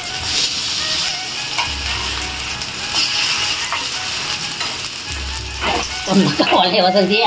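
Oil sizzling steadily as kolim patties (tiny black shrimp) shallow-fry in a steel pan.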